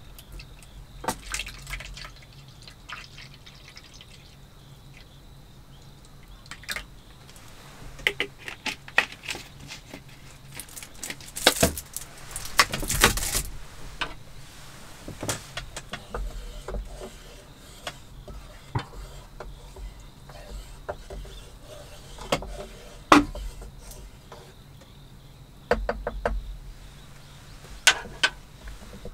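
Water poured from a plastic bottle into a stainless Sierra cup, then scattered small clicks, knocks and handling noises of camp cookware on a wooden table. A louder, denser noisy stretch comes about twelve seconds in, and sharper knocks come near the end.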